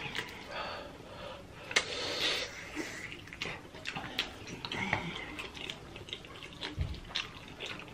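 Wet chewing and lip-smacking of two people eating saucy chicken wings, with many short scattered clicks from mouths and fingers.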